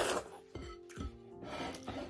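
Background music with held notes, over which a loud wet slurp of curry-soaked food is sucked off the fingers right at the start, followed by softer eating noises near the end.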